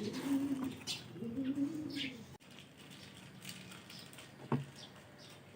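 Domestic pigeons cooing, low repeated coos for the first two seconds or so. After an abrupt cut it turns quieter, with a single sharp knock.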